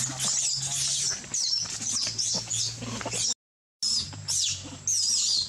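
High-pitched animal calls: repeated short chirps and squeals that rise and fall in pitch, over a steady low hum, broken by a brief total silence a little past three seconds in.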